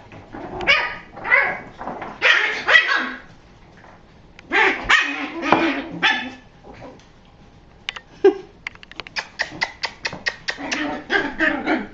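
Toy poodle puppies barking and yipping as they play, in several short bursts, with a quick run of sharp yips and clicks in the second half.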